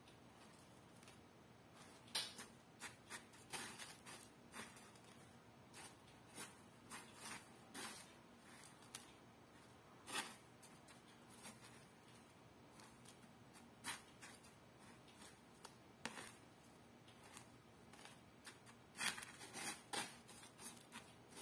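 Faint, irregular scratchy clicks of bamboo chopsticks working chicken skin through panko breadcrumbs, the tips scraping the crumbs and tapping the plastic container. The clicks come thickest in a few clusters, with quieter stretches between.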